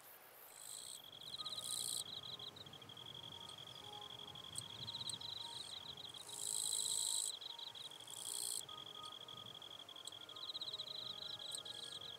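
Eastern Japanese katydid (Higashi-kirigirisu) singing: loud, hissy buzzing bursts about a second long come three times over a steady, high, pulsing insect trill.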